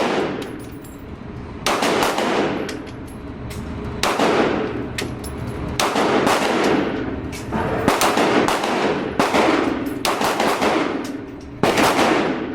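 Gunshots fired at a shooting range: about eight sharp reports, one to two seconds apart, each trailing off in a brief echo.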